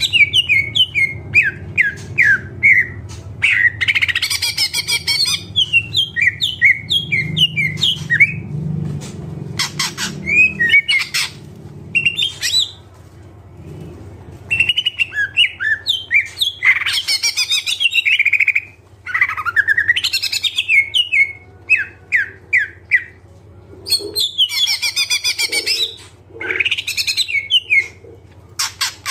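A cucak ijo (green leafbird) singing in long, fast runs of varied chirps, whistles and trills packed with mimicked phrases, broken by brief pauses.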